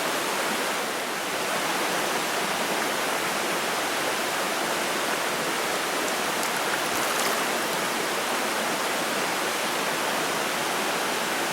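Steady rush of flowing stream water, an even hiss with no breaks or distinct splashes.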